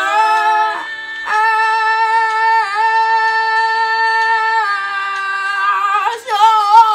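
A girl's voice singing a karaoke song loudly, holding one long note for several seconds and then dropping to lower, wavering notes near the end.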